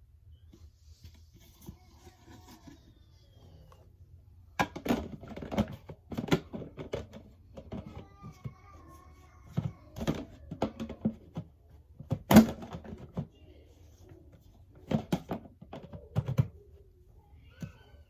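Irregular knocks and clunks of objects being handled, in several clusters, the loudest about twelve seconds in, with no vacuum motor running.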